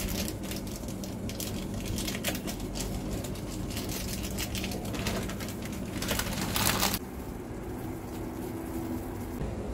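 Plastic seasoning sachet crinkling and rustling as dried vegetable flakes are shaken out of it into a pot of instant noodles, louder for a couple of seconds near the middle, then stopping; a steady low hum runs underneath.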